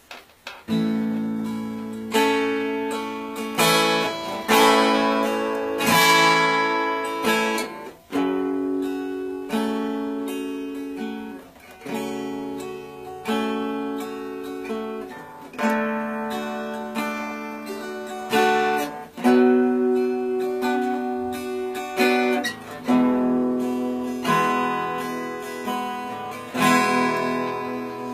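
Acoustic guitar strumming chords as the instrumental introduction to a worship song. Each chord is struck and left to ring and fade before the next.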